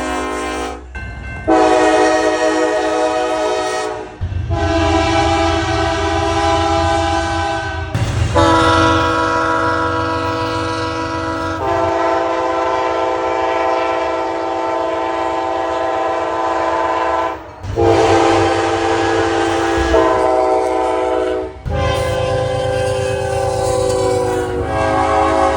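Locomotive air horns, one after another: about seven different horns, each sounding a chord of several tones held for a few seconds, with abrupt cuts between them. Low locomotive engine rumble lies under several of the horn blasts.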